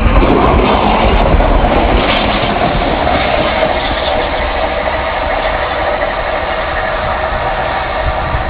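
Northern Rail Class 142 Pacer diesel multiple unit running past and pulling away, its underfloor diesel engine giving a steady drone over the noise of the train on the track.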